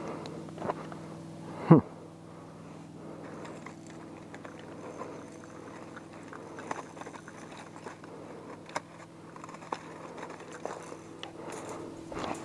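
Rummaging through a backpack and handling fishing gear: scattered small clicks, scrapes and rustles over a steady low hum. About two seconds in comes one short, loud squeak that falls sharply in pitch.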